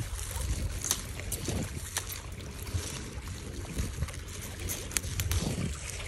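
Wind buffeting the microphone as a steady low rumble, with a few sharp clicks and rustles of sea kale stems and leaves being handled and cut with a small knife.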